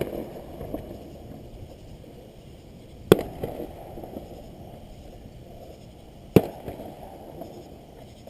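Aerial fireworks shells bursting: two loud bangs about three seconds apart, each followed by a short rumbling echo and a few smaller pops.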